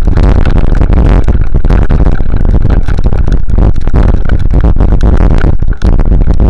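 Loud, heavily distorted rumbling and rattling from a camera fixed to a vehicle jolting over a rutted sandy dirt track, with many knocks and a brief dip about six seconds in.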